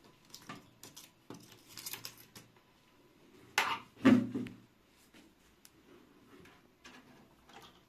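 Tools and test probes handled on a workbench: scattered small clicks and knocks, with a louder clattering scrape about three and a half to four seconds in.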